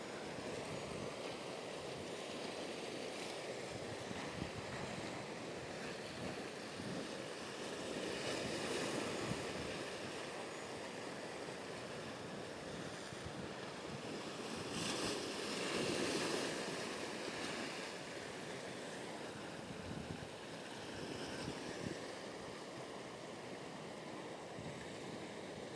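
Ocean surf washing with wind buffeting the microphone, swelling twice as waves break.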